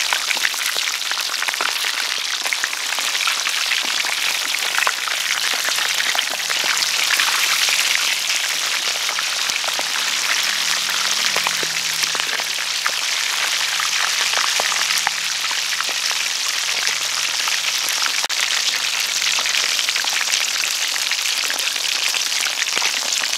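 Whole duck deep-frying in a wok of hot oil: a steady, dense crackle and sizzle of bubbling oil.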